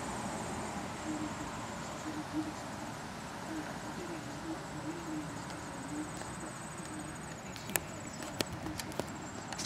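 Quiet outdoor background with a faint high insect trill and a low, wavering hooting call repeated in short phrases. A few sharp clicks come near the end.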